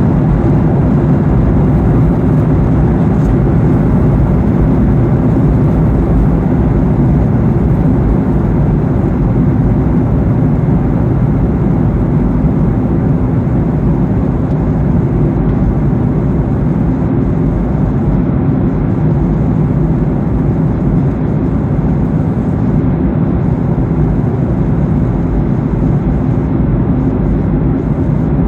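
Steady cabin noise of a Boeing 737-800 in cruise flight: a constant low rush of airflow and engine noise.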